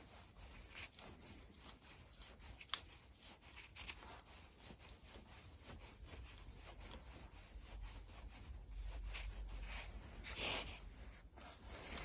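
Faint metal rubbing and small clicks of a small Allen key tightening the clamp bolt on a Quad Lock handlebar phone-mount arm. One sharper click comes a little under three seconds in, and a louder rub near the end.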